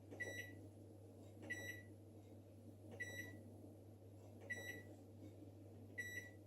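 Beko MOF20110X microwave's control-panel beeper sounding five short beeps about one and a half seconds apart, each beginning with a soft click of a button press, as the power level button is stepped through its five levels. A faint steady hum lies underneath.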